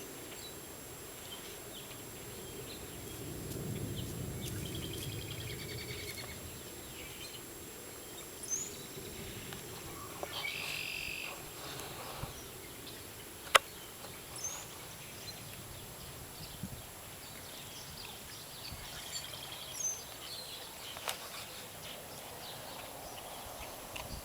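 Faint birdsong, with short chirps here and there over a steady background hiss, and one sharp click about halfway through.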